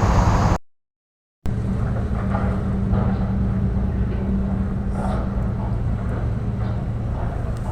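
A steady low engine hum, cut by a sudden drop to complete silence for about a second near the start before it resumes.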